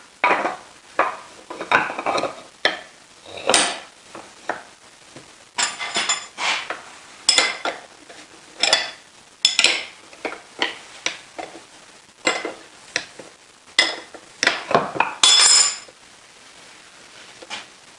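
Metal tools and lathe tailstock parts clinking and scraping: an irregular run of clanks, some ringing briefly, that stops about two seconds before the end.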